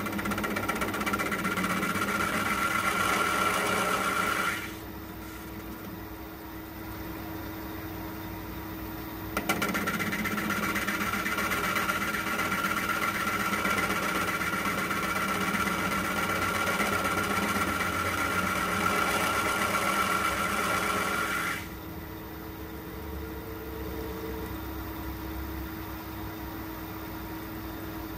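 Metal lathe running steadily while turning a bronze brake-cylinder casting. A louder, brighter machining noise covers the first few seconds. It stops, comes back with a click about nine seconds in, runs until about twenty-one seconds in, and then only the quieter hum of the lathe is left.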